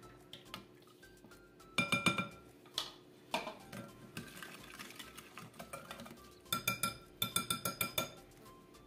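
Wire whisk beating a runny mix of egg, sugar and melted butter in a glass bowl: quick metallic clinks of the whisk against the glass, in a burst about two seconds in and again from about six and a half to eight seconds, with lighter ticking between.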